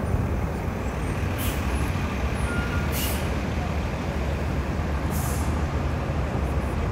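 City street traffic with a steady low rumble of heavy vehicles. Three short hisses of air sound over it, typical of a bus or truck's air brakes.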